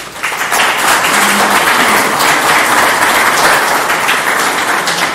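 Audience applauding: dense clapping that starts suddenly and begins to die away near the end.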